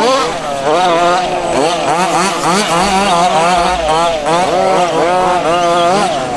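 Several 1:5 scale petrol off-road buggies' small two-stroke engines racing, their pitch rising and falling again and again as they rev and back off through the track.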